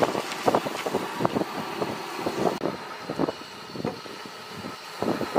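Perforated steel ladle scraping and knocking against a metal pan while stir-frying conch meat in a thick onion-tomato masala: a quick, irregular run of scrapes and clinks that thins out after about three and a half seconds.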